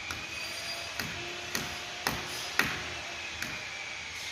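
About six sharp, irregular taps and clicks from hand work on a wall, the loudest about two and a half seconds in, over a steady hiss.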